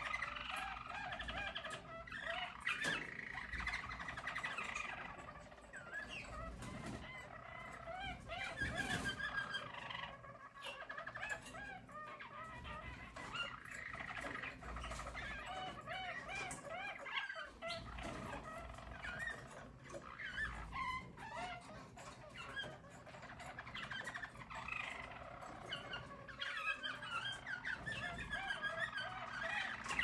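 Harz (German Roller) canaries singing: a continuous rolling song of rapid, repeated trills and warbles that never breaks off.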